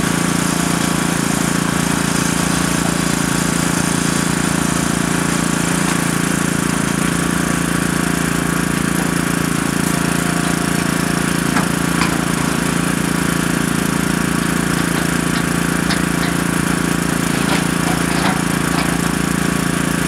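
Heavy diesel engines running steadily: an excavator swinging loads of demolition debris into a dump truck, with the truck beside it. A few faint knocks come about halfway through and again near the end.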